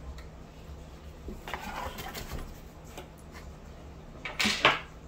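Cardboard shipping box rustling and scraping as an old car radio is set down inside it. There is a rustle about one and a half seconds in and a louder, brief scrape near the end.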